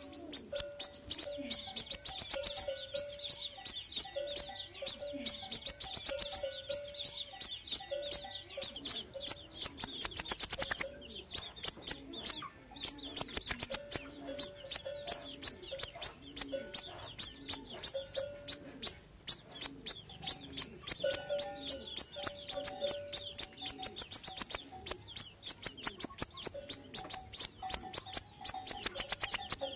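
Sunbird song played for luring: rapid, high-pitched ticking trills repeated over and over, with a brief break partway through and softer lower notes repeating beneath.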